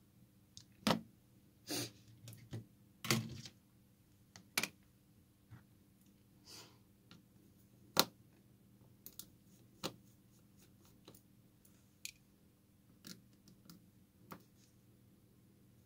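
Irregular small clicks and taps with a few brief scrapes, as of small tools and phone parts being handled on a workbench during a phone repair.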